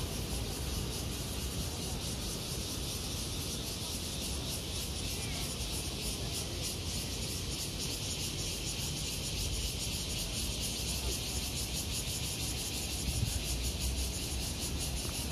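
Steady outdoor ambience of an insect chorus, a fast, even pulsing high up, with a low rumble underneath.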